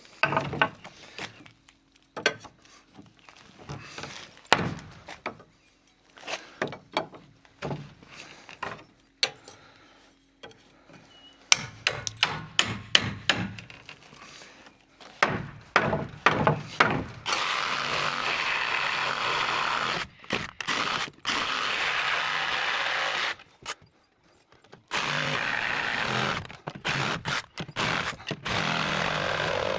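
Repeated sharp knocks and bangs of demolition on old rotten porch timber, then a power tool running steadily in two long stretches of about six and five seconds, with a short break between them.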